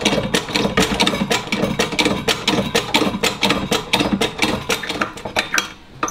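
Hydraulic shop press's powered pump running with a rapid, even clatter of about eight strokes a second as the press forces a bush through the front wishbone's bush housing.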